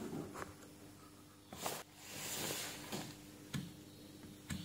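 A few soft clicks and light handling rustle as test leads are handled and a Fluke 179 multimeter's rotary switch is turned on, the clicks spread about a second apart.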